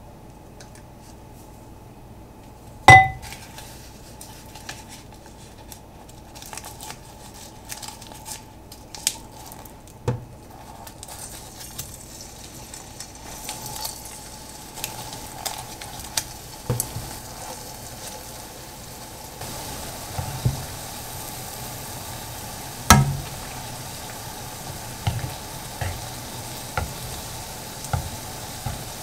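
Nori-wrapped grated nagaimo frying in shallow oil in a frying pan: a light sizzle with small pops and crackles, getting louder about eleven seconds in and again about twenty seconds in as more pieces go into the oil. A sharp clink of a utensil on cookware comes about three seconds in, and another some six seconds before the end.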